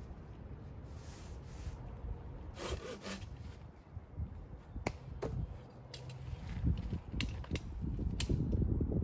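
Wooden sticks rubbing and scraping as poles are laid against a lean-to's ridge pole, with a few sharp wooden clicks in the second half over a low rumble that grows louder near the end.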